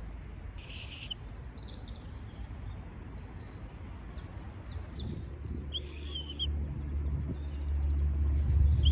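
Wild birds chirping, then a short, clear high note blown on a freshly carved sycamore stick whistle about six seconds in, with a second, longer note starting right at the end. A low rumble on the microphone grows louder over the second half.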